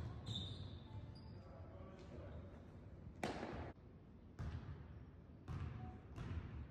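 A sharp smack echoing in a gymnasium about three seconds in, followed by three or four duller thumps roughly a second apart.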